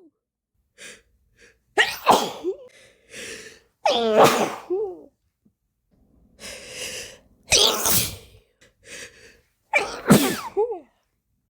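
A woman sneezing four times, each loud sneeze ending in a short falling voiced tail, with quieter catching inhales between them; sneezes brought on by a cold's tickle.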